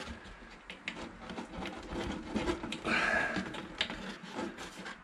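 Hands working at the fuel line's plastic quick-release clip under the raised fuel tank: scattered small clicks and rubbing as the clip is squeezed and pushed, without it yet coming free.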